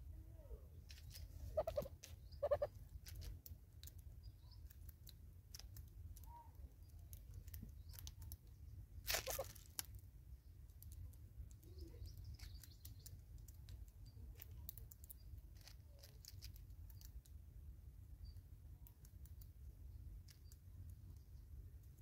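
Sparse clicks and crunching taps of a southern red-billed hornbill's bill pecking food from a pot feeder, over a low steady rumble. A couple of short bird calls sound about two seconds in, and a brief louder rustle comes about nine seconds in.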